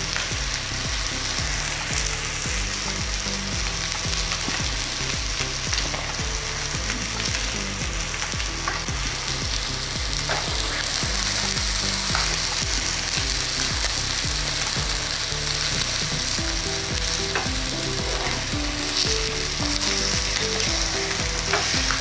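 Marinated tandoori chicken pieces sizzling steadily in ghee in a hot pan, with the odd faint crackle.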